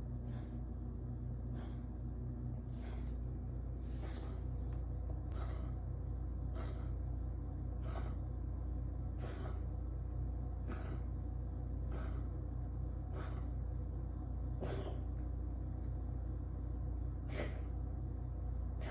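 Cat hacking and coughing, trying to bring up a hairball: short, harsh breathy hacks about every second and a half, with a longer pause a little before the end. A steady low hum runs underneath.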